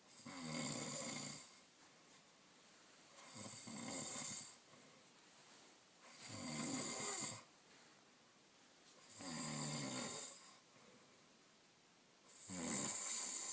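A sleeping person snoring: five loud snores, one about every three seconds, each lasting a little over a second, with quiet breaths between.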